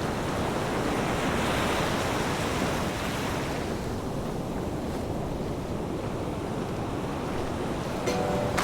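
Ocean surf washing ashore, with wind buffeting the microphone; the wash swells about one to three seconds in, then holds steady. Near the end, bell-like mallet notes of background music come in.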